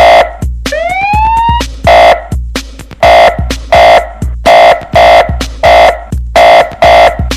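Electronic siren-and-horn mix for testing sound-system horn speakers (cornetas): a siren sweeps up once just after the start, then loud repeated horn stabs with a booming bass kick follow at about two a second.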